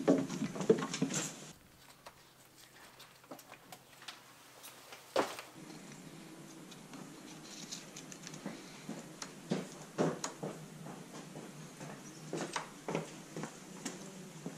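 Soft rustling and scattered light clicks of gloved hands fitting a new rubber timing belt over the pulleys of an Alfa 145 Twin Spark engine, with a few sharper knocks about five and ten seconds in.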